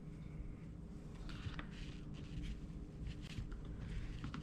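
Faint, scattered rustles and light scrapes of small craft pieces being handled and pressed into place on a work surface.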